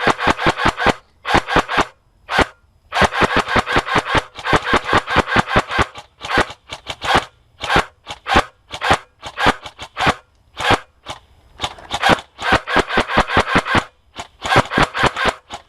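Airsoft gun firing in rapid bursts of sharp shots, about ten a second, broken by short pauses and a few single shots.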